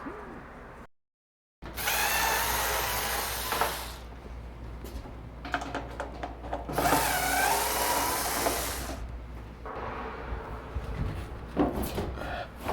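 Cordless driver spinning out screws from a dryer's back panel: two runs of a couple of seconds each, the motor whine wavering in pitch as the trigger is worked, followed by a few light clicks and knocks of handling.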